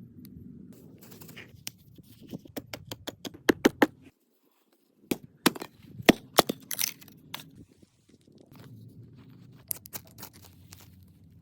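Wood campfire crackling and popping in irregular sharp clicks, some of them loud. The sound cuts out to silence for about a second a little after four seconds in, then the crackling resumes.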